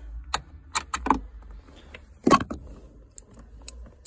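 Metal clinks and clicks of a socket tool and nuts being handled at a car's gear selector mounting, about half a dozen separate taps with a louder knock about two seconds in.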